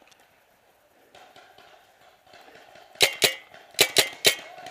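Paintball marker firing five sharp shots in quick succession, two and then three, starting about three seconds in.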